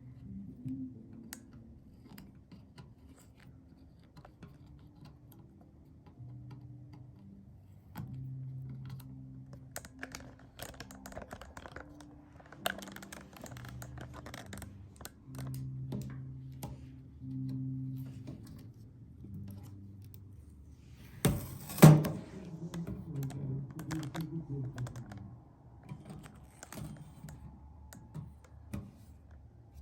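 Scattered light clicks and taps, like objects being handled, with one loud clatter about two-thirds of the way through, over faint low sustained notes.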